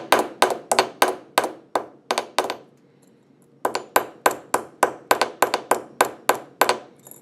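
Small hammer tapping on a wire rivet to peen its end into a rounded head, sharp metallic taps with a short ring, about three a second. The taps stop for about a second in the middle, then resume at the same pace.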